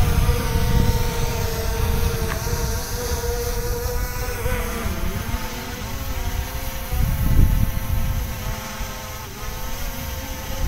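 SJRC F22 quadcopter drone's propellers buzzing steadily, the pitch wavering and dipping as the motors correct against strong wind. Wind gusts rumble on the microphone, strongest about seven seconds in.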